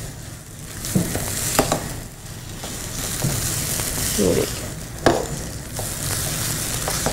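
Grated potato and semolina mixture sizzling in oil in a nonstick frying pan while a spatula stirs and scrapes it, with a few sharper scrapes against the pan. It is cooking on medium-low heat as it thickens into a dough.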